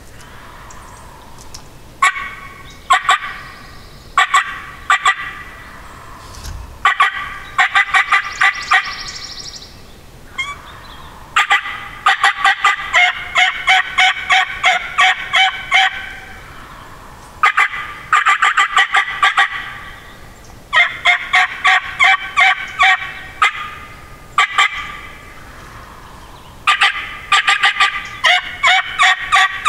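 Wild turkey calling loudly: repeated runs of quick, sharp notes, several runs coming back to back with short pauses, the longest lasting several seconds.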